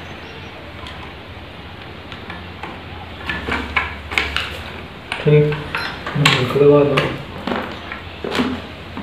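Light plastic clicks and taps of an Intel stock CPU cooler being handled and fitted onto the motherboard, over a low steady hum. A voice is heard in the second half, louder than the clicks.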